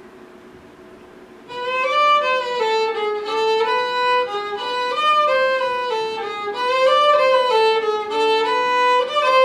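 Solo violin playing a slow melody one note at a time, coming in about a second and a half in after a quiet pause.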